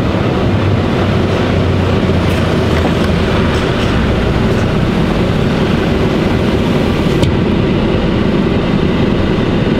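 Lorry's diesel engine running and the truck rolling slowly, a steady rumble heard from inside the cab.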